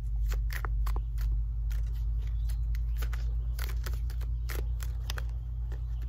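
Wood fire in a fire pit crackling: irregular sharp pops and snaps, some louder than others, over a steady low rumble.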